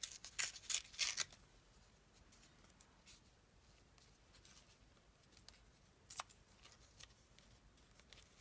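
Scissors snipping paper: a quick run of snips in the first second or so, then one more sharp snip about six seconds in.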